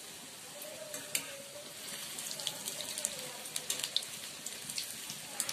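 Hot oil sizzling and crackling in a kadhai as bread-crumb-coated potato patties deep-fry, with scattered sharp pops that come thicker from about two seconds in.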